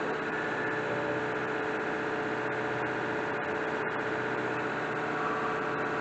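International 4700 dump truck's diesel engine running steadily at a raised idle of about 1200 RPM, heard from inside the cab, while its air compressor builds the brake air pressure back up.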